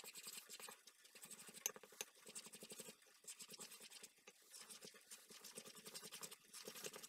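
Faint spoon scraping and clicking against a small glass bowl, stirring powdered sugar into an egg white for icing, in irregular light strokes.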